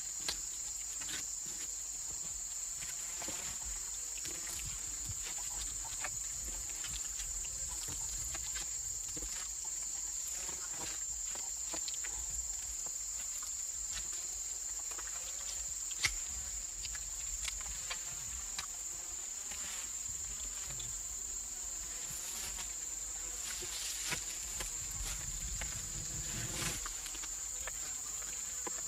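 Steady high-pitched drone of forest insects, with scattered faint clicks and knocks and one sharper click about sixteen seconds in.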